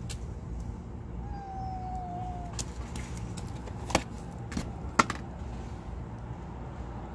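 Steady low rumble of road traffic. About a second in comes a faint, drawn-out cat meow that sinks slightly, and near the middle two sharp clicks about a second apart are the loudest sounds.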